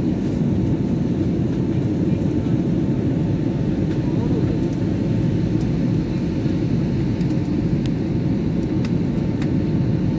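Jet airliner cabin noise in flight: engines and rushing air make a steady, heavy low rumble, with a faint steady whine above it.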